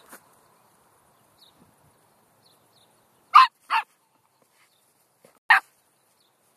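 Poodle barking: two quick barks a little over three seconds in, then a third about two seconds later.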